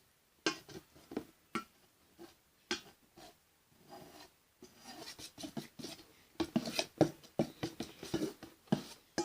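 A spoon scraping around the inside of a bowl and stirring thick clear glue, in short irregular scrapes and taps that come thicker and faster from about six seconds in.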